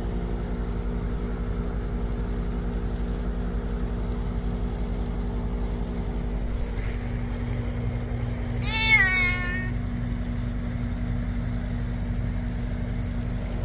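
A cat meows once, about nine seconds in: a short call that drops in pitch and then holds, over a steady low hum.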